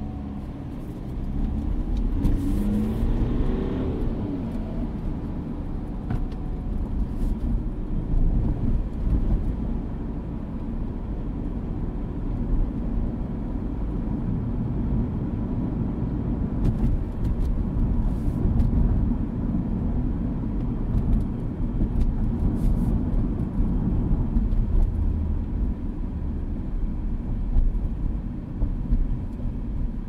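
Mini Clubman heard from inside the cabin while driving: the engine revs up as the car accelerates about two seconds in, then settles into a steady low drone of engine and road noise.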